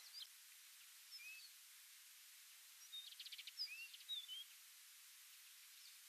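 Tawny pipit calling: a short high chirp at the start and another about a second in, then around three seconds in a quick rattle of ticks followed by several short slurred notes, over a faint steady hiss.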